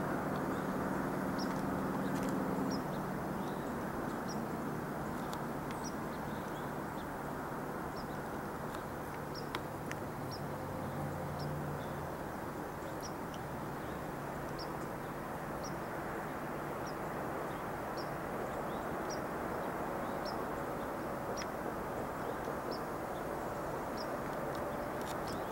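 Steady outdoor background rumble with a faint low hum that is strongest in the first few seconds, and a short high peep repeating about once a second throughout.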